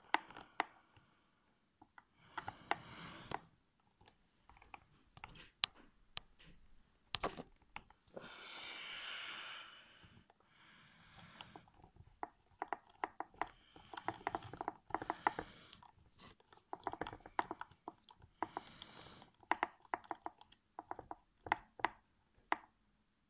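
Precision Torx screwdriver turning a stripped screw out of a laptop hard drive's metal case: many small irregular clicks and short bouts of gritty creaking as the bit grips and the screw turns, with a brief hiss about eight seconds in.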